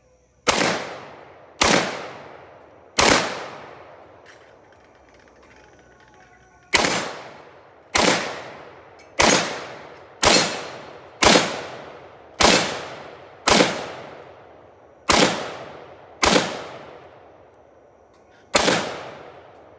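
IWI Galil Ace rifle in 7.62x39 firing thirteen semi-automatic shots, three in quick succession, then after a pause of nearly four seconds ten more at roughly one-second intervals. Each shot is followed by an echo that dies away over about a second.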